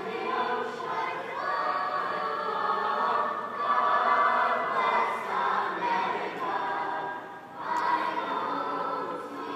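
Large school choir singing a patriotic song in sustained phrases, with a short break between phrases about seven and a half seconds in.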